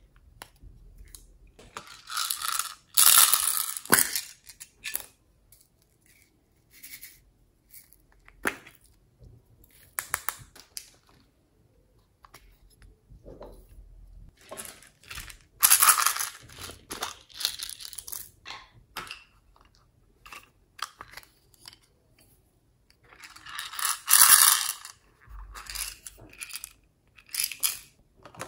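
Small plastic cases handled over a tray of slime: sharp clicks and taps of lids and hard plastic, with three louder spells of rattling and scraping as glitter flakes are tapped out of a case onto the slime.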